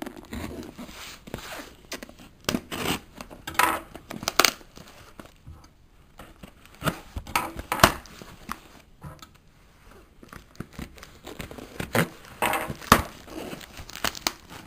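Parcel packaging being torn open and unwrapped: irregular rips, rustles and crinkles, with the sharpest tears about eight and thirteen seconds in.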